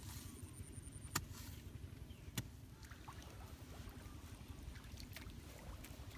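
Hoe digging into wet, muddy ground: a few short sharp knocks, the loudest about a second in and about two and a half seconds in, over a steady low rumble of wind on the microphone.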